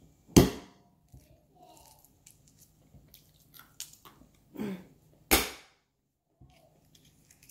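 Two sharp blows of a metal mallet cracking a walnut shell, one about half a second in and one about five seconds in, with faint clicks of shell pieces between.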